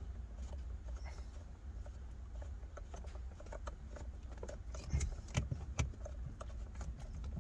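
Scattered light clicks and knocks of tools and plastic trim parts being handled at a car steering wheel while the airbag's T30 Torx screws are fitted, sharper and more frequent from about five seconds in, over a steady low rumble.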